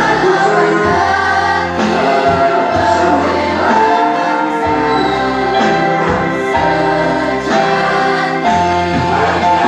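School girls' choir singing together, the held notes shifting about once a second, over a low sustained accompaniment.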